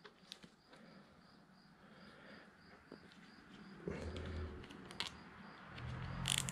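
Faint rustling and scattered clicks of a rubber inner-tube strip and a plastic zip tie being handled and fitted around a bicycle frame tube, with a cricket chirping steadily in the background. A low hum comes in about two-thirds of the way through and grows near the end.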